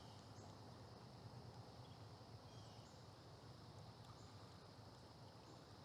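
Near silence: faint riverside ambience with a steady high insect drone, short faint chirps every second or two, and a low hum underneath.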